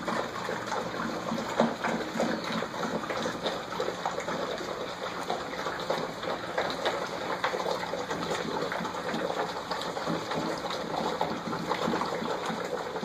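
A litter of Scottish terrier puppies lapping and slurping milk together from one shallow dish: a steady, dense run of many small wet clicks.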